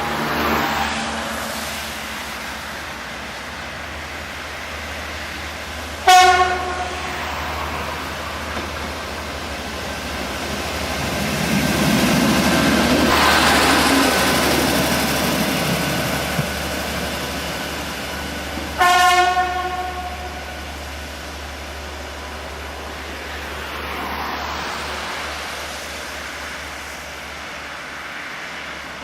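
Narrow-gauge train on the move, running noise swelling and fading as it passes, with two short pitched signal blasts about thirteen seconds apart.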